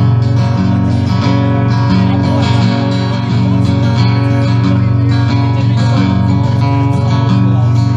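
Acoustic guitar strumming chords at a steady, even level.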